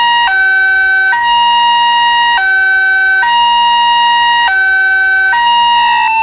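Railway level-crossing warning alarm from a pole-mounted horn loudspeaker: a loud electronic two-tone signal alternating between a higher note held about a second and a lower note held a little under a second, repeating steadily. Near the end the tones shift to a different pattern.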